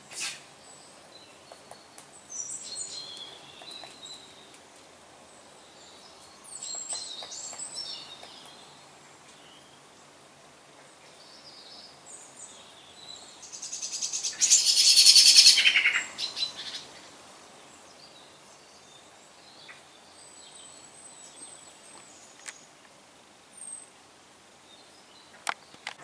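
Garden birds calling and chirping in high, scattered notes, with a loud, fast chattering trill lasting a few seconds about halfway through. A few single sharp taps are heard later on.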